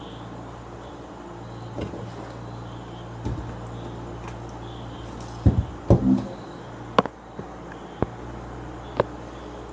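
Scattered clicks and knocks of small metal parts being handled while a bolt and nut are fitted inside a voltage stabilizer's case, the loudest a cluster of knocks about halfway through and then single sharp clicks about a second apart. A steady low hum runs underneath.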